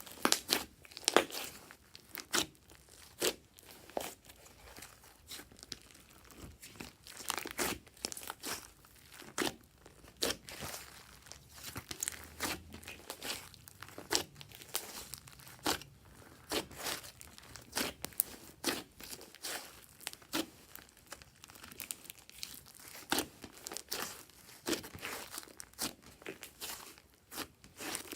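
Glossy slime being squished and stretched by hand, giving irregular sticky pops and crackles, several a second.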